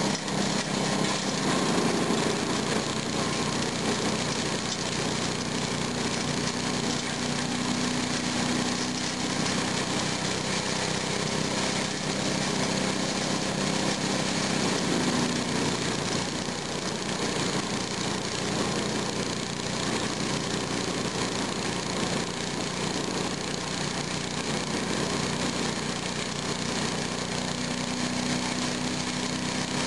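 Kemp chipper-shredder running steadily on its small engine while branches are fed into the hopper and shredded; the engine note wavers slightly as the branches go in.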